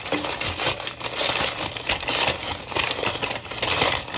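Brown kraft packing paper crinkling and tearing as it is pulled open by hand, a dense run of quick crackles and rustles.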